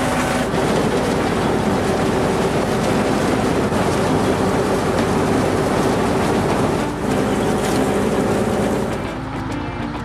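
Cartoon sound effect of farm machinery running, a steady, dense mechanical noise, over background music. The noise eases off about a second before the end.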